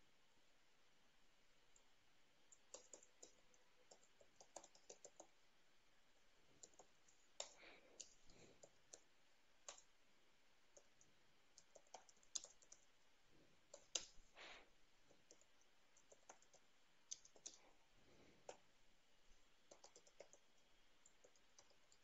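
Faint computer keyboard typing: irregular runs of key clicks with short pauses between them.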